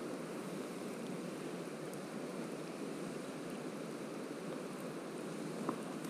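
Steady rushing of a steelhead river's current, an even noise with no breaks. A brief click sounds near the end.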